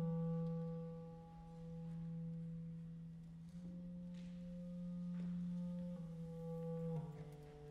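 Clarinet, violin and cello playing soft, sustained notes in a contemporary chamber piece: a low held note with a quieter one above it, the pitches shifting about three and a half, six and seven seconds in.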